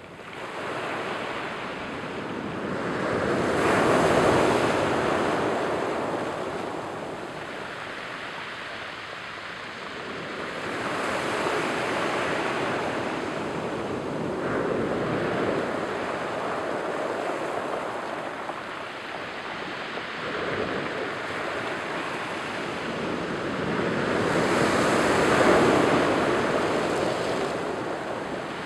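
Surf breaking and washing over a cobble and pebble beach, swelling and fading in slow surges every several seconds. The biggest surges come about four seconds in and again near the end.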